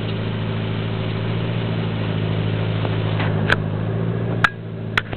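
Aquatic weed harvester's engine running with a steady low drone. Sharp knocks come about three and a half seconds in, again a second later, and twice near the end, and the drone falls off after the loudest knock.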